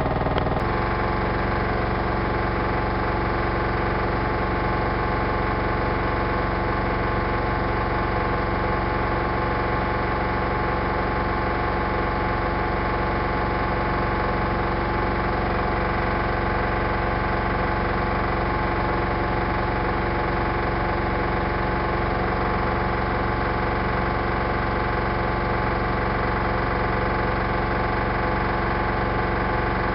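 Siemens iQ WIQ1430 front-loading washing machine spinning at a steady high speed: a constant motor whine over drum rumble, with a slight shift in tone just after the start.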